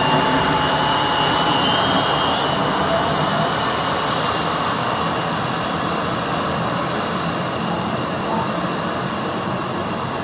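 Embraer ERJ 170 jet taxiing away under its twin turbofans: a steady jet roar with a high whine that dies out in the first couple of seconds, the whole sound slowly fading as the aircraft moves off.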